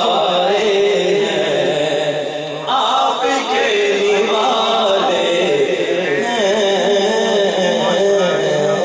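Men's voices singing a naat, a devotional Urdu poem in praise of the Prophet, without instruments, in long held, wavering lines; the melody jumps higher about three seconds in.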